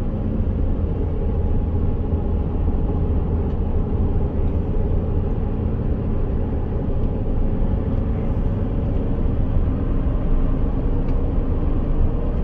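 A car driving along a paved road, heard from inside the cabin: a steady rumble of engine and tyre noise.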